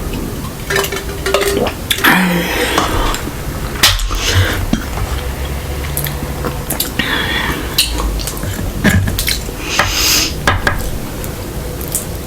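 Eating at the table: a utensil clicking and scraping against a dish in irregular taps, with a few longer rustling, scraping noises between them.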